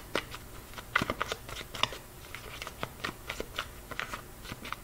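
A deck of tarot cards being shuffled by hand: an irregular run of quick clicks and slaps as the cards fall against each other, several a second.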